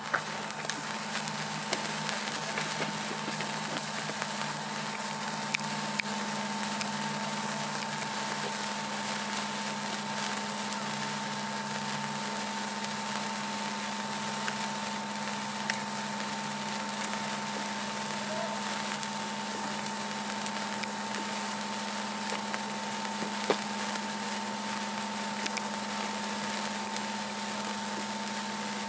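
Several handheld sparklers burning, a steady fizzing hiss with many small scattered crackles. A steady low hum runs underneath.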